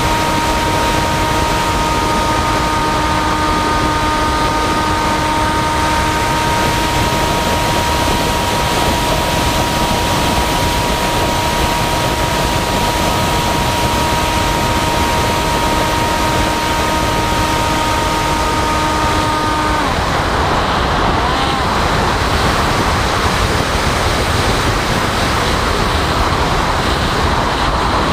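Steady wind rush on a radio-controlled flying wing's onboard camera, with the steady whine of its propeller motor, which cuts out about two-thirds of the way through as the throttle is closed, leaving only the wind.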